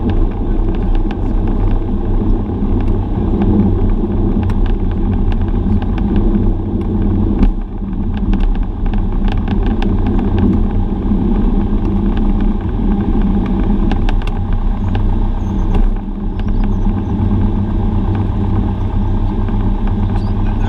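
Cessna 172's piston engine and propeller running steadily, heard inside the cabin as the plane rolls out on the runway after landing and turns off, with scattered light clicks over the drone. The sound briefly drops about a third of the way through.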